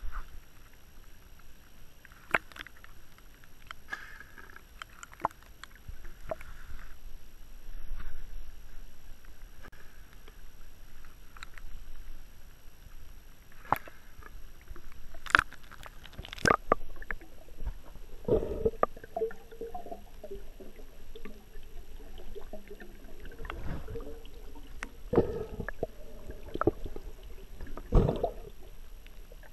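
Water sloshing and gurgling around an action camera held at the river's surface and dipped under it, with scattered sharp knocks and splashes against the housing.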